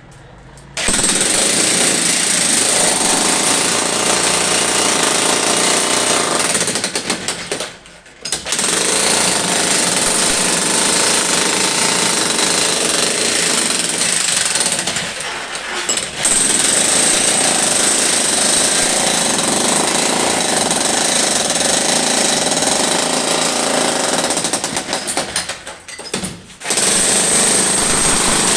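Electric demolition hammer chipping, a loud, continuous hammering noise. It runs in long spells and stops briefly three times: about 8, 15 and 26 seconds in.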